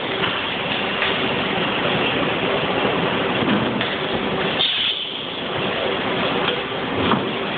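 Automated feta block cutting and weighing line running: a steady, loud machine noise with a few faint clicks, easing briefly about five seconds in.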